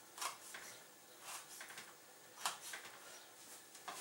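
Kitchen knife slicing sun-dried tomatoes, its blade knocking on a plastic cutting board: a few soft, irregular taps, the sharpest about two and a half seconds in.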